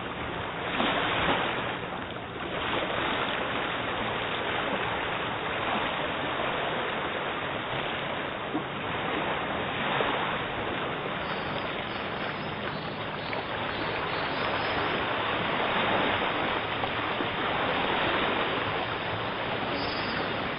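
Steady rushing of shallow water, swelling and easing slightly in loudness, with no voices.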